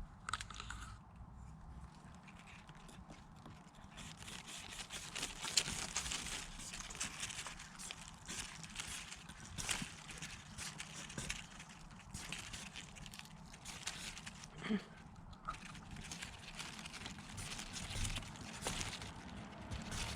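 Rustling and crackling of zucchini plant leaves and stems being pushed aside and cut to pick a zucchini, with many small clicks and snaps; it grows busier after a few seconds.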